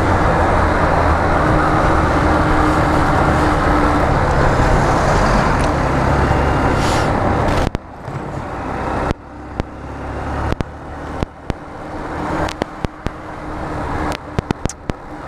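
Motorcycle riding noise picked up by an improvised external mic on a GoPro: steady engine and wind noise. About halfway through the level drops suddenly, then comes back in repeated rising swells broken by sharp crackling clicks.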